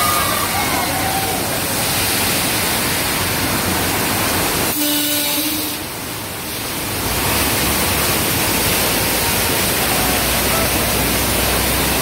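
Loud, steady rushing of staged flood water pouring across an attraction's earthquake set. The noise dips briefly about five seconds in, then comes back with a deep rumble underneath as the water surges in.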